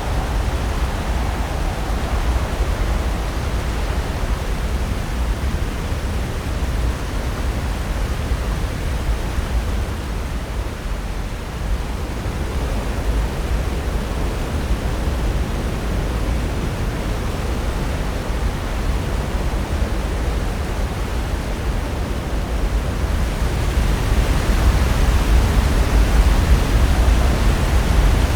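Pacific Ocean surf breaking on the shore: a continuous rushing wash with a deep rumble, growing louder near the end as a bigger wave comes in.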